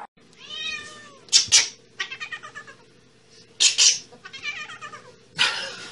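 A cat meowing and yowling over and over: pitched, arching calls broken by three short, loud, harsh cries.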